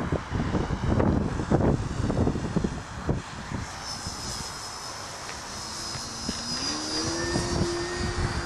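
Radio-controlled aerobatic model airplane's engine and propeller in flight, with wind buffeting the microphone for the first few seconds. About two-thirds of the way in, the engine note rises and then holds.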